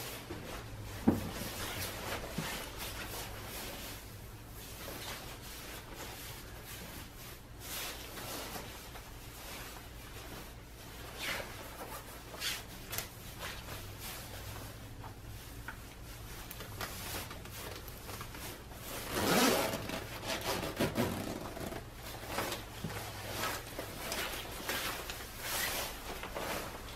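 Nylon shell of a puffer winter coat rustling and rubbing as it is put on and shifted on the body, with the coat's metal zipper drawn up in a longer rasp about two-thirds of the way through.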